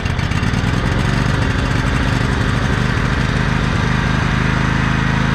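20 horsepower Briggs and Stratton lawn tractor engine running steadily just after starting, with its oil drained out.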